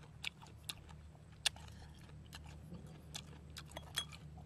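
Close-up eating sounds: a person chewing, with scattered sharp mouth smacks and clicks roughly once a second over a steady low hum.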